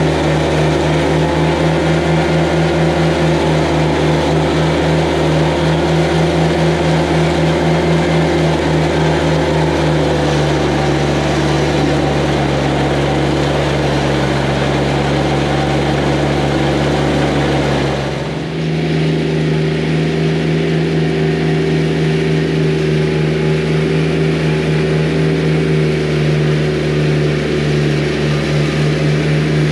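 Tractor engine and straw blower running steadily while blowing straw out of the chute across the ground. The tone shifts slightly about 18 seconds in, after a brief dip in level.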